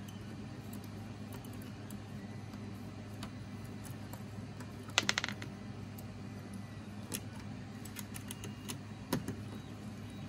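Small clicks and knocks of hands handling a stepper motor on its 3D-printed mount, with a quick rattle of sharp clicks about halfway through and two more single clicks later, over a steady low hum.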